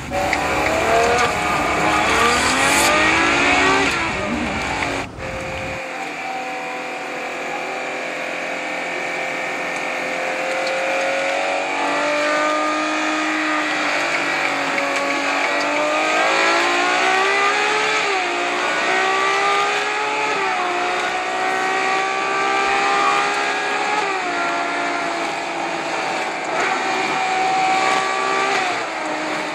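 Sports car engine running close by, its pitch rising and falling in slow swells as it is revved. A deep low rumble in the first six seconds drops away abruptly, leaving the higher engine note.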